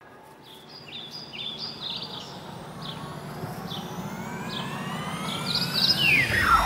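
Build-up sound effect: a rising synth sweep that grows steadily louder, with short high chirps over the first few seconds, ending in a fast downward sweep that drops into the music.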